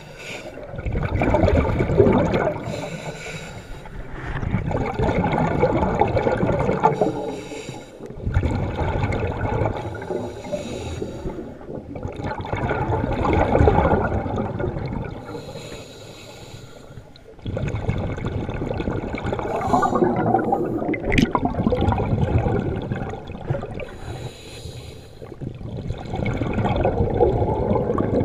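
Scuba diver breathing through a regulator underwater: about six slow breath cycles, each a rushing inhale and a bubbling, gurgling exhale that swell and fade.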